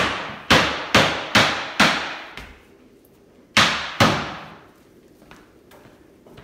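A scrub brush clogged with goo knocked hard against a block of wood to shake it clean: five sharp knocks about half a second apart, then two more a moment later, each with a short echo in the room.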